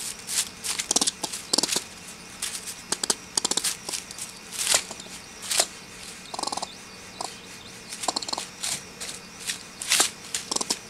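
Eastern gray squirrel chattering angrily in a live trap: many short, sharp bursts of chatter in irregular clusters with brief pauses, the agitated, stressed call of a trapped squirrel.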